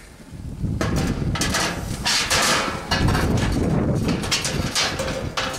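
Metal cooking grates of a Monument Denali 425 gas grill clanking against the firebox and each other as they are set into place, a string of sharp knocks.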